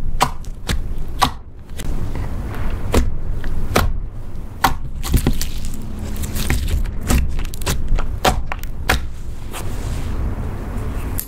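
Glittery blue slime being pressed and stretched by hand, giving off a rapid, irregular run of sharp wet clicks and pops over a soft squishing sound.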